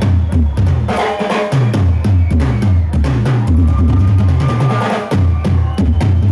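Rock band playing live with the drum kit to the fore: a steady pulse of kick and snare with fast cymbal hits over a moving bass line.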